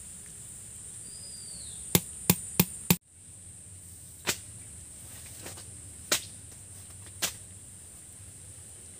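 Four quick clicks of a metal ladle against a metal pot of khichdi. Then three separate flat slaps as woven mats are put down one by one on a concrete floor, over a steady high insect drone.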